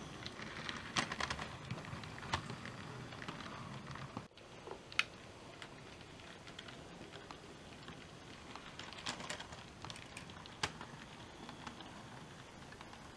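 OO gauge model locomotives and wagons running on the track: a low whirr with irregular clicks and ticks of wheels over rail joints. There is a brief dropout about four seconds in, after which the clicks are sparser over a fainter hum.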